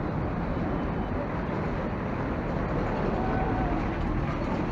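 Steady low rumble of a moving motor vehicle, engine and road noise without a break.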